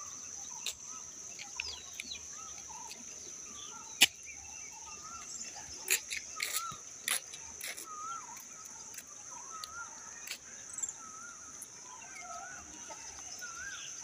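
Outdoor chorus of insects making a steady high-pitched drone, with many short warbling bird calls throughout. A few sharp clicks are heard, the loudest about four seconds in.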